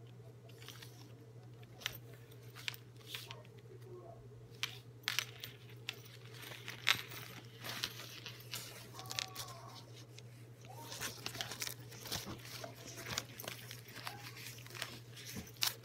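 Black fabric neck travel wallet being handled: fabric rustling with scattered small clicks, irregular throughout, over a steady low hum.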